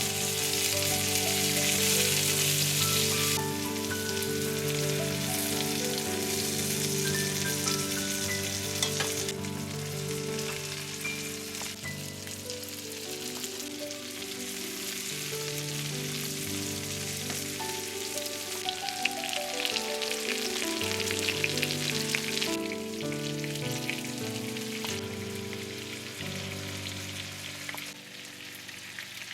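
Food sizzling in a hot frying pan, a steady frying hiss that is strongest in the first few seconds and again near the end. Soft background music with slow, held notes plays underneath.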